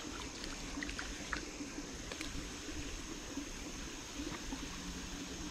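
Small creek running with a steady trickle, with a few faint short clicks in the first couple of seconds.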